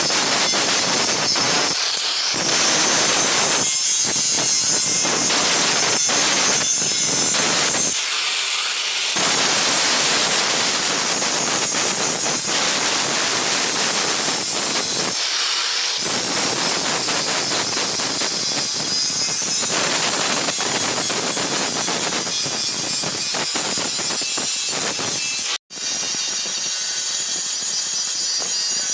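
Loud workshop machinery running: a steady, harsh hiss with fast clatter, breaking off for an instant near the end.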